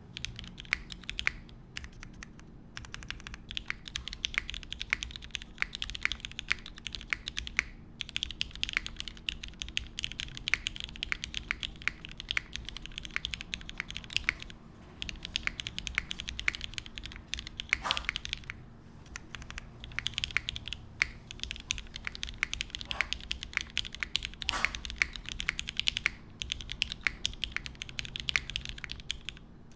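Steady typing on a Kyohaku mechanical keyboard with lubed vintage Cherry MX Black linear switches, an aluminium plate and GMK keycaps: a dense run of key clacks, broken by a few short pauses.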